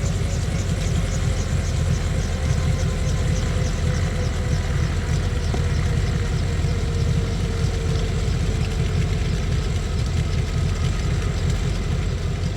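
Helicopter running steadily on the ground after landing: a heavy low rotor and engine sound with a fast, even ticking high above it.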